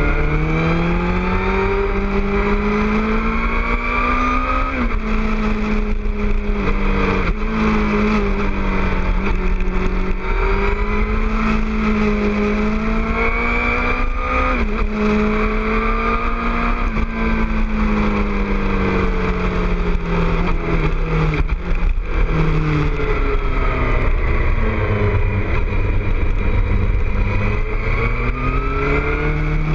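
2006 Suzuki GSX-R600's inline-four engine through a Two Brothers aftermarket exhaust, revving as the bike runs through a string of curves. The pitch rises on the throttle and drops sharply a few times. Wind rumbles on the microphone underneath.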